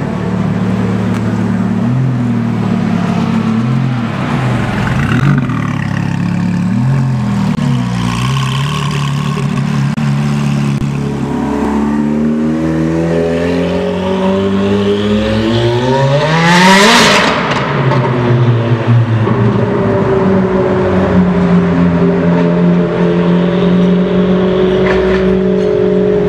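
Supercharged Novitec Rosso Ferrari F430 Spider V8 running at low revs, then accelerating hard in a tunnel, its pitch rising for several seconds to the loudest point about two-thirds of the way through. After that it falls back to a steady lower drone.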